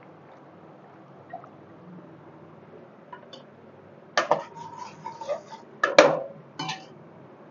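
Metal ladle knocking and scraping against a metal kadai while the spiced oil tempering is stirred: a run of clinks starting about four seconds in, with the loudest clank about six seconds in. Hot oil sizzles faintly underneath.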